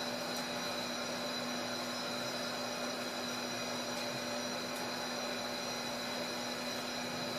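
Steady background hum and hiss with several constant tones, and a few faint ticks.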